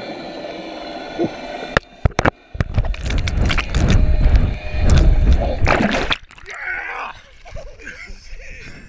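A GoPro's microphone underwater in the lake: at first a steady muffled hum with a few faint steady tones. About two seconds in come several sharp knocks, then several seconds of loud splashing and gurgling water as the camera is grabbed and brought up, which stops abruptly about six seconds in, leaving quieter water sounds and faint voices.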